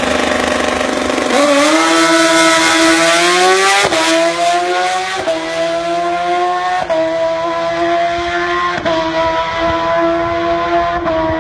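Drag-racing motorcycle accelerating hard down the strip from the start line, its engine note climbing and dropping back at each quick gear change, about five shifts.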